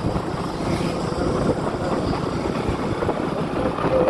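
Motorcycle engine running steadily while riding along at road speed, with rushing road and wind noise.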